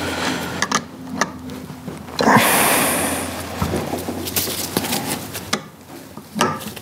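Light metallic clicks and taps of an open-end wrench on the bolts and housing of a power steering pump and vacuum pump assembly being bolted together. About two seconds in there is a short hiss lasting roughly a second and a half, louder than the clicks.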